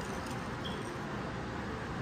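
A wire whisk stirring thick custard with crushed pineapple in a large pan, over a steady, even hiss.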